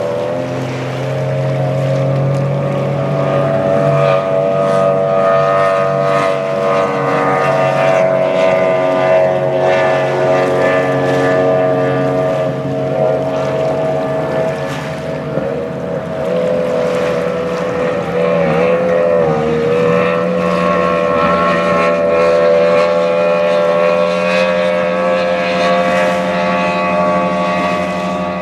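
Racing powerboat outboard engines running flat out, a loud, steady high-pitched drone that dips briefly about two-thirds of the way through and then picks up again.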